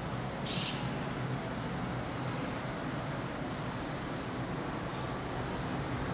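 Steady low drone of a large car ferry's engines and deck machinery, mixed with wind noise on the open deck, with a brief hiss about half a second in.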